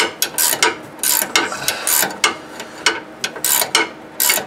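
18 mm ratcheting wrench clicking in quick, uneven strokes, several a second, as it turns a nut on a steering-linkage stud.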